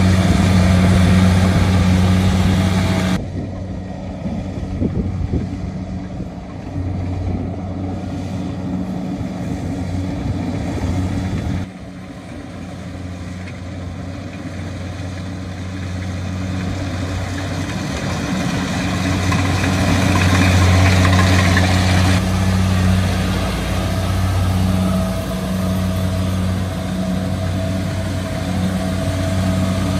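Kubota DC70G combine harvester's diesel engine running steadily under load as the machine cuts and threshes rice, a low, even hum. The sound drops abruptly at a few points and is loudest about two-thirds of the way through.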